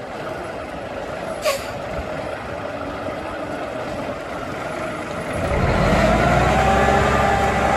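Cummins diesel engine of a 2005 International 9400 road tractor running, with a brief sharp hiss about a second and a half in. About five seconds in the engine grows louder and its pitch rises and falls.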